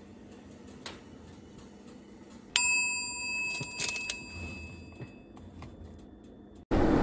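A single bell-like ding about two and a half seconds in, ringing and fading over about two seconds: a timer chime signalling that the baking time is up. A faint click comes about a second in, and light metallic clinks follow shortly after the ding.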